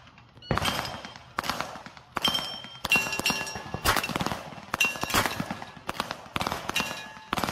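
Handgun shots fired one at a time in an irregular string, about ten in all, roughly one a second. After several of them a high metallic ring carries on as the steel plate targets are hit.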